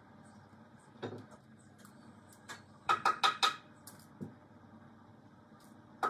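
Quick runs of sharp metallic taps, about five in half a second, around three seconds in and again at the end, with a single duller knock about a second in, from hand work on an overhead wooden pergola beam.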